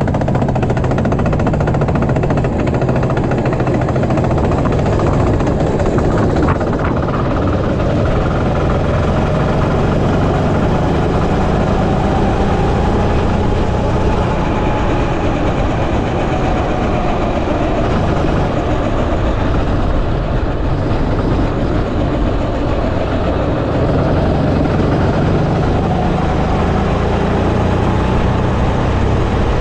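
Go-kart engine running, heard from an onboard camera on the kart. It stays low and steady for the first few seconds, then rises and falls in pitch as the kart speeds up and slows along the track.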